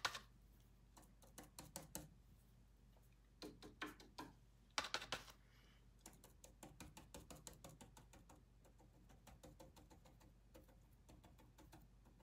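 Faint, quick tapping and light knocks of a small hand tool dabbing through a plastic stencil against a painted wooden bench, with one louder tap about five seconds in and a run of rapid light taps after it.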